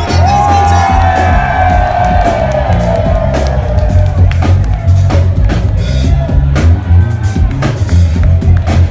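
Live band playing an instrumental stretch: drum kit and a heavy, repeating bass line, with a long held lead note near the start that slowly slides down in pitch.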